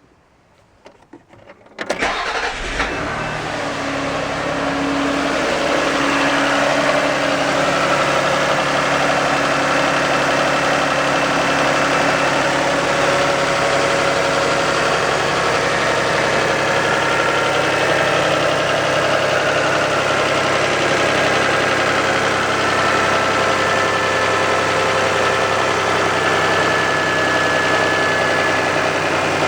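1990 Toyota Camry's 2VZ-FE V6 starting from cold: a brief crank, catching about two seconds in, then idling steadily.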